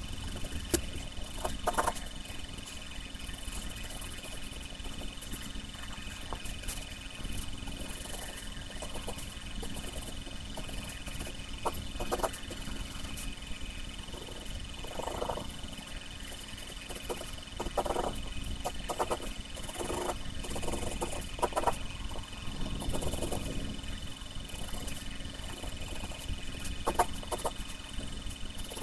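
Wooden graphite pencil scratching on paper in short, irregular strokes, with the pencil's rubber eraser rubbing on the paper near the start.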